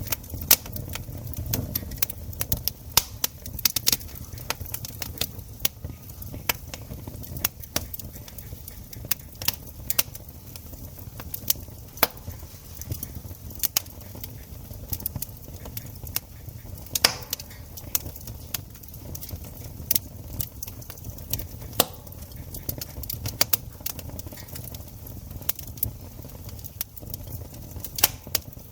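Wood campfire crackling: sharp, irregular pops and snaps, several a second with louder ones scattered through, over a low steady rumble.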